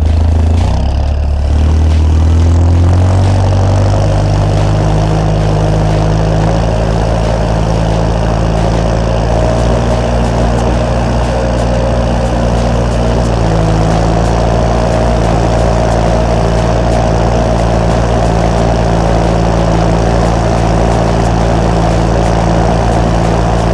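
A John Deere tractor's diesel engine running steadily as the tractor drives across a field. Its pitch rises over the first few seconds, then holds even.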